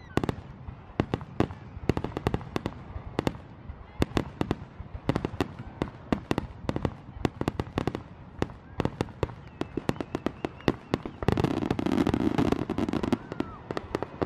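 Fireworks going off in quick succession: sharp bangs and crackles several times a second, with a louder, denser stretch near the end.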